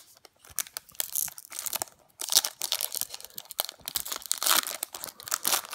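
A Topps baseball card pack's wrapper being torn open and crinkled by hand: scattered crackles at first, then a dense run of tearing and crinkling from about two seconds in.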